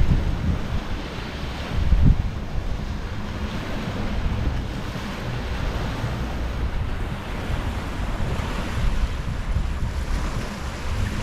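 Gentle ocean waves washing and lapping against the beach in a continuous surf wash, with wind buffeting the microphone in low gusts, the strongest about two seconds in.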